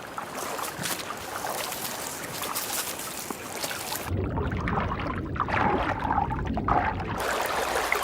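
Running water trickling and splashing. About four seconds in it becomes a deeper, duller water sound for about three seconds, then turns brighter again.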